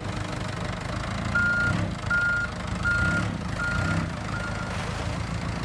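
Forklift reversing alarm beeping five times at one steady high pitch, a little more than one beep a second, over a low steady engine rumble.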